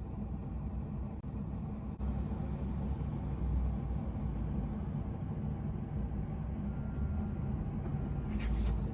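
Steady low rumble of a vehicle on the move, with two short hissing sounds near the end.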